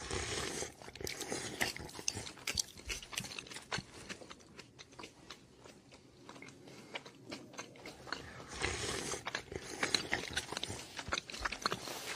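Crunchy biting and chewing, likely an animal eating something crisp: irregular crackling crunches, busiest in the first couple of seconds and again about nine seconds in, with quieter chewing between.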